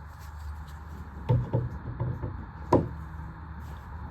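Hand tools being handled: a handful of short knocks and clicks, as of tools picked up and set down on a hard surface, over a low steady background.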